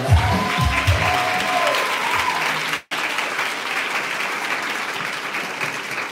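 Dance music ends in its last notes over the first two seconds while an audience applauds. The applause carries on steadily after the music stops, broken by a split-second dropout about three seconds in.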